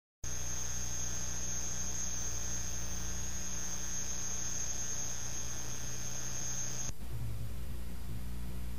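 Steady electrical mains hum on an old TV videotape soundtrack, with a thin high-pitched whine over it that cuts off suddenly about seven seconds in.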